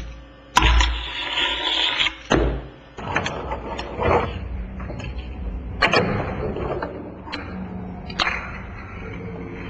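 Fingerboard rolling on wooden ramps, the wheels making a rushing hiss, with sharp clacks every second or two as the board pops and lands.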